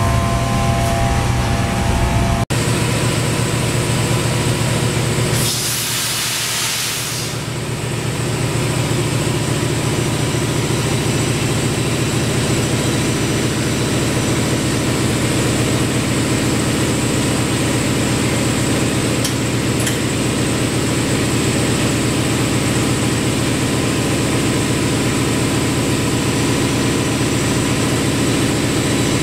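Air-powered vacuum lifter running: a steady machine hum with several steady tones, and a burst of air hissing for about two seconds, roughly six seconds in.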